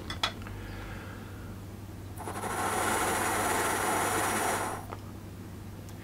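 A breath is blown steadily into an AirPhysio PEP breathing device, an airy rush lasting about two and a half seconds. The metal ball inside does not vibrate, which is taken as a sign that the lungs are not as strong as they could be, normal for new users.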